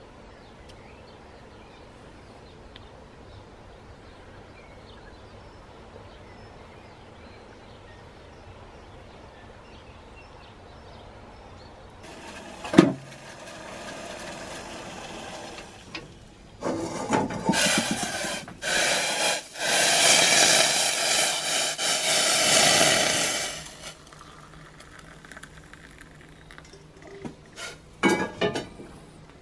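Faint outdoor ambience, then a cast-iron gas ring burning under a saucepan of water: a sharp click about 13 seconds in, a steady hiss, then several seconds of loud rushing hiss, with a few knocks near the end.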